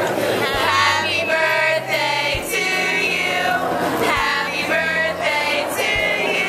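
Music with female voices singing over a steady accompaniment and a slow beat, about one beat every two seconds.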